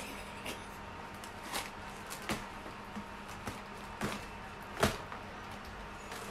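Cardboard ice cream boxes handled on a wooden table: about seven short, scattered knocks and taps, the loudest just under five seconds in, over a faint steady hum.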